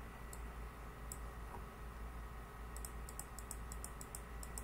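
Light clicking at a computer while a document is paged through: two single clicks, then from about three seconds in a fast run of clicks, about six a second.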